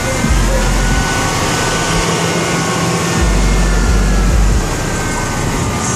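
Car-audio subwoofers in a Chevrolet Tahoe playing music with very deep bass, two long bass notes each lasting over a second, over a steady haze of noise.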